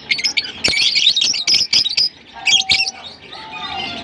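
A flock of lovebirds chattering: many rapid, overlapping high-pitched chirps and squawks. They are thickest in the first two seconds, with a short lull and then sparser calls toward the end.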